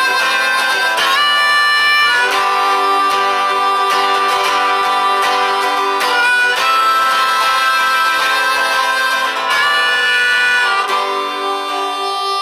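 Instrumental break of a harmonica solo over strummed acoustic guitar: long held harmonica notes with slides between them, easing off near the end.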